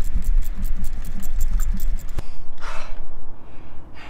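Socket ratchet clicking rapidly, about six clicks a second, as it backs out a long starter mounting bolt. The clicking stops about two seconds in and is followed by a heavy breath.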